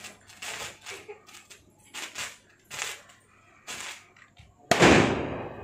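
A firecracker bursts once with a sudden loud bang near the end, the sound trailing off over about a second. Before it come a few short, softer noises.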